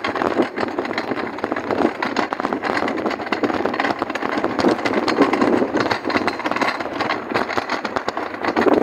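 Green plastic shopping trolley rattling steadily as it is pushed over brick paving, a dense clatter of small clicks.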